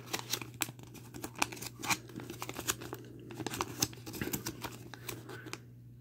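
A folded paper instruction leaflet being unfolded by hand: irregular crisp rustling and crinkling of paper, which dies away about five and a half seconds in. A steady low hum runs underneath.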